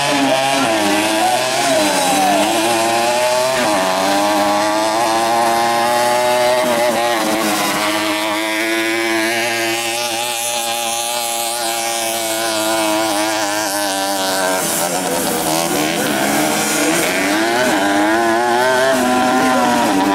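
Several small 50 cc two-stroke moped and mini-motocross engines revving together, their pitches rising and falling as the bikes accelerate along the track.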